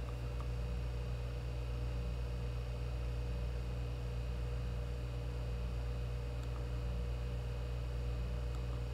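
Steady low electrical hum with a faint hiss, broken by a few faint clicks.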